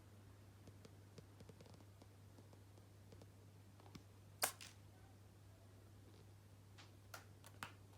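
A small animal's single quick sneeze about halfway through, with otherwise near silence and a few faint clicks near the end.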